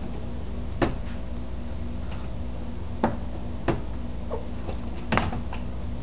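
Dishes and the dishwasher's wire rack knocking and clicking as a child handles them: a few short, sharp knocks, the last a quick double knock near the end.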